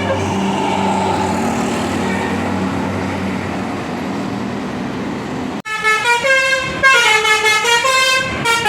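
A bus engine running with a rushing noise, then, after a sudden break about two-thirds of the way in, a telolet 'basuri' multi-tone bus horn plays a flute-like melody of changing notes.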